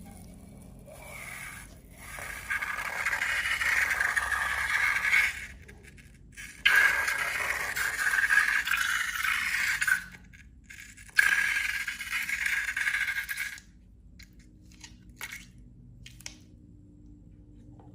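Scraping from balloons and slime being handled, in three stretches of a few seconds each; the second and third start abruptly.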